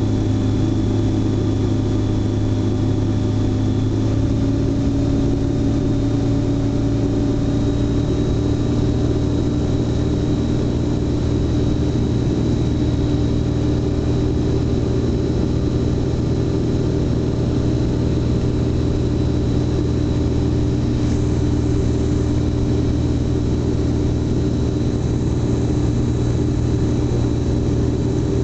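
Light aircraft's engine and propeller running steadily in cruise flight, heard from inside the cockpit as a loud, even drone. The pitch rises slightly about four seconds in, then holds.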